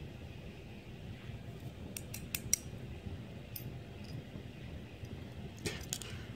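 Sparse light metallic clicks as the small pins, springs and core parts of a disassembled pin-tumbler lock are handled, with a quick run of clicks about two seconds in, a single one a little later and two more near the end, over a faint low hum.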